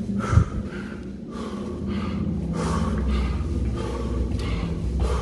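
A man breathing hard and fast, loud rasping breaths in and out, out of breath from climbing about thirty flights of stairs. There is a single thump about half a second in.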